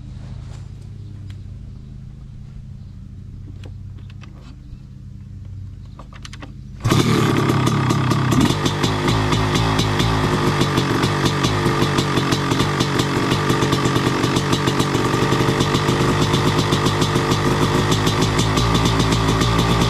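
Kawasaki Tecate 4 two-stroke single-cylinder engine catching about seven seconds in on a fresh spark plug after a hard start. It then runs loudly with a rapid, even firing beat, revving briefly just after it starts. Before it fires there is only a low, steady hum.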